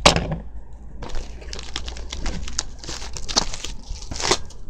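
Plastic packaging crinkling and rustling as it is pulled open by hand, with a few louder rips and crackles near the end.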